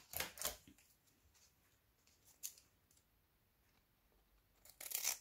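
Scissors snipping through the canvas of a diamond painting as its printed colour legend is cut out: two snips right at the start, a single one about halfway, and a quick run of snips near the end.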